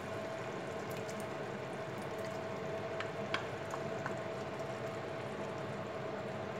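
Chicken simmering and sizzling in a frying pan under freshly added tomato sauce, with a steady hum underneath. A wooden spatula knocks against the pan a few times about halfway through, once a little louder.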